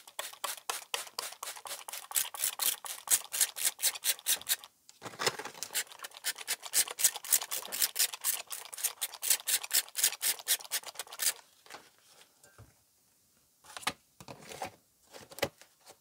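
Hand trigger spray bottle misting soil in quick repeated squeezes, about three to four sprays a second, with a short break about five seconds in; the spraying stops about eleven seconds in. Near the end come a few light plastic clicks as a clear plastic lid is fitted onto the seed tray.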